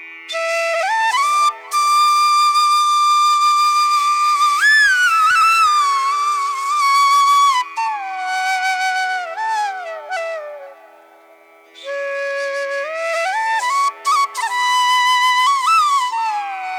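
Music: a solo wind-instrument melody, flute-like, of long held notes that slide smoothly up and down between pitches, over a faint steady drone. The melody pauses briefly about two-thirds of the way through, then resumes.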